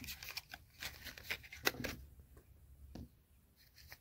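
Small paperboard product box handled and opened by hand: a few light clicks and scrapes of cardboard as the end flap is worked loose, mostly in the first two seconds, then fainter rustling.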